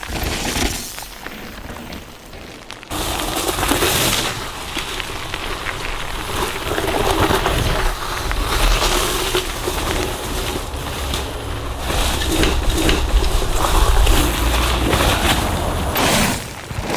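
Mountain bike being ridden over rough ground, with a dense run of rattles and knocks over a low rumble. It gets suddenly louder about three seconds in.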